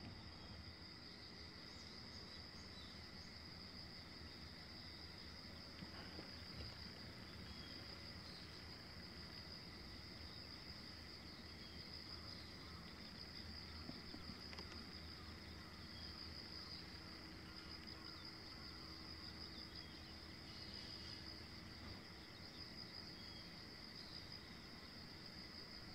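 Insects trilling in a steady, unbroken high-pitched chorus over a faint low background rumble.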